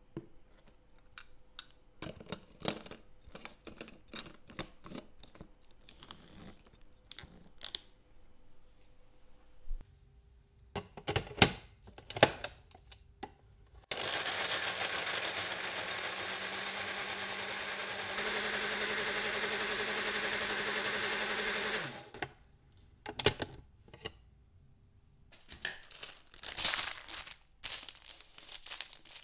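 Blender running for about eight seconds, likely blending cashews and water into cashew milk; its pitch steps slightly higher about halfway through. Before and after come clicks and knocks of kitchen handling, the loudest a pair of sharp knocks shortly before the blender starts.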